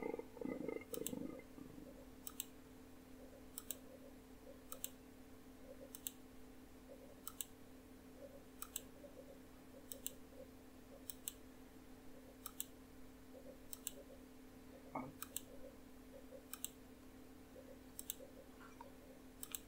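Computer mouse button clicked at a steady pace, about once every second and a quarter, each click a quick press-and-release double tick. A faint steady electrical hum runs underneath.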